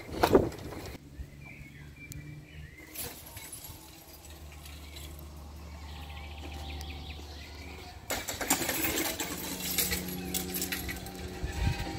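Wind buffeting the microphone in gusts, with a bird chirping a few times about a second in and a steady low hum underneath; the rushing grows louder from about eight seconds in.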